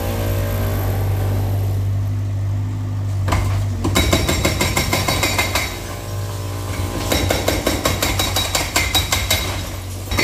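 Yanmar mini excavator's diesel engine running steadily while its hydraulic breaker hammers rapidly into a brick-and-concrete wall. The breaker runs in two bursts, one starting about three seconds in and lasting a couple of seconds, the other from about seven seconds on.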